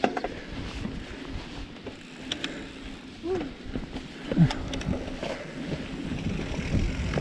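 Giant Trance full-suspension mountain bike descending a dirt trail: a steady rumble from the tyres rolling over the ground, with frequent sharp clicks and rattles from the chain and frame over bumps. Two short pitched sounds come about three and four and a half seconds in.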